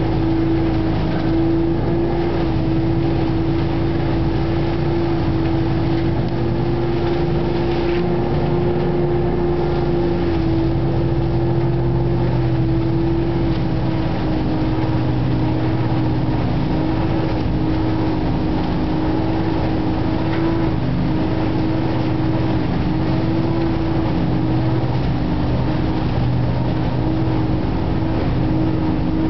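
Trailer-mounted leaf vacuum loader running steadily while leaves are raked into its intake hose: a loud, even engine-and-fan drone with a strong held tone that dips slightly about halfway through.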